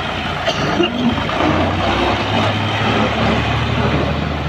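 Ghazi 65 HP tractor's diesel engine running as the tractor pulls its trolley away, the engine note rising a little about a second and a half in.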